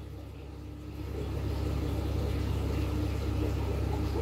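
A steady low mechanical rumble, like an engine running, that grows louder about a second in and then holds steady, with a faint hum above it.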